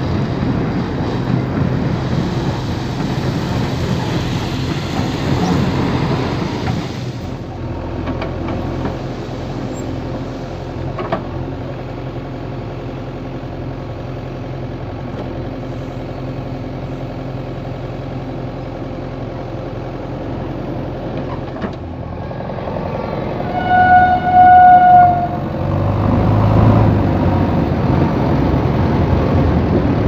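JCB 3DX backhoe loader's diesel engine running steadily while it works a pile of crushed stone. A loud horn blast of about a second and a half sounds a little over twenty seconds in.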